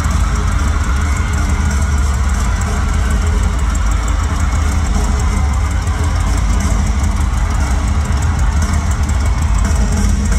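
Loud live rock band music, drums and electric guitar over a heavy, steady low rumble, with no clear beat.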